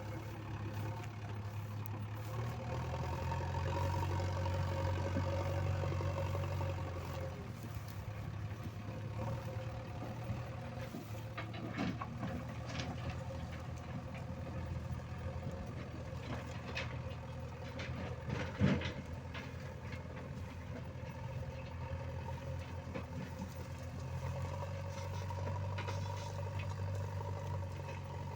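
JCB 3DX backhoe loader's diesel engine running steadily, growing louder for a few seconds early on and again near the end. A few sharp knocks come through around the middle.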